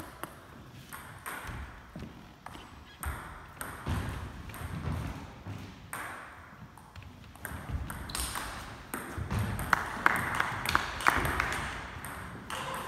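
Table tennis rally: the celluloid ball clicking off rubber paddles and bouncing on the table in quick alternation. The hits are light at first and turn sharper and louder about eight seconds in.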